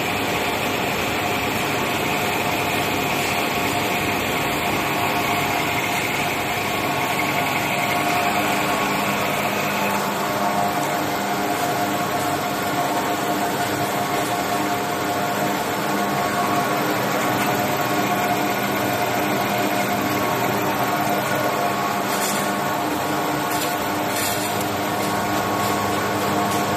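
1969 OM TMD 25/35 vertical lathe running steadily, a machine hum made of several steady tones. A higher whine in it stops about ten seconds in.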